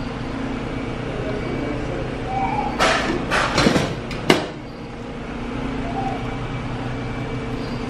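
A few scrapes and clinks of kitchen utensils on a cooking pot, ending in a sharp knock about four seconds in, over a steady hum.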